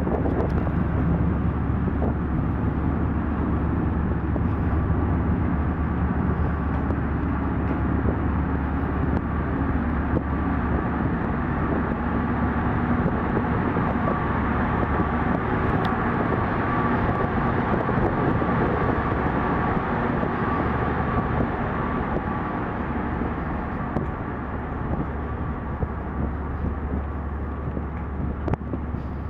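Steady low drone of a car ferry's engines and machinery heard on its vehicle deck while under way, with a faint steady whine above the hum. It drops off a little in the last few seconds.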